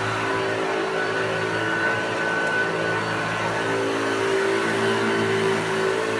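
Hoover Junior upright vacuum cleaner running steadily, its motor giving an even hum with a thin high whine and no change in pitch; the motor bearings are freshly lubricated.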